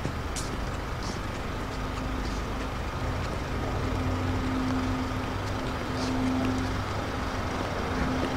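A steady low mechanical hum with a droning tone, and a few faint clicks of high heels stepping on concrete.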